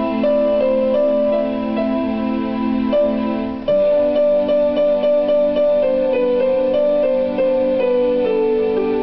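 Electronic keyboard playing a melody over held chords. About four seconds in the chord changes, and the melody then repeats notes and steps downward.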